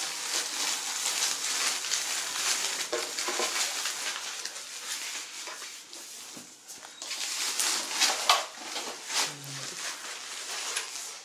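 Plastic packing bag rustling and crinkling as it is handled, with a lull about six seconds in before the crinkling picks up again.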